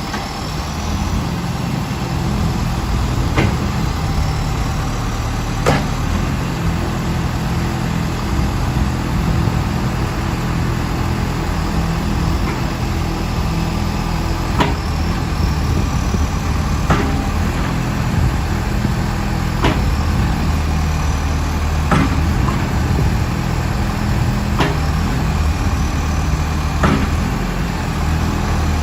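Backhoe loader's diesel engine running steadily, with a sharp clank every two to three seconds and a faint high whine now and then.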